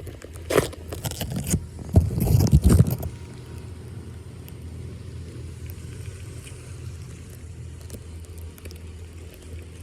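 Loud scraping and splashing as debris is cleared from a flooded street drain, in bursts during the first three seconds, over a steady low rumble.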